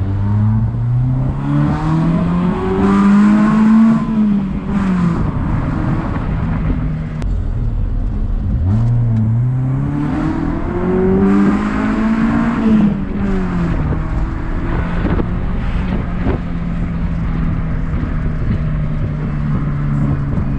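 Honda Civic engine with 4-2-1 headers and a Spoon-copy exhaust with resonator, accelerating hard twice, its pitch climbing and then dropping at each upshift, then cruising at a steady note. The deeper, rounder exhaust note comes from the larger 4-2-1 headers.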